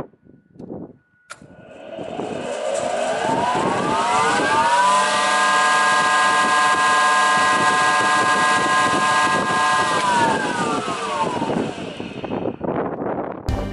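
KNOHOMA FSU 5 spindle moulder started up: its motor and spindle run up with a rising whine over about three seconds, run steadily at speed, then wind down with a falling whine near the end.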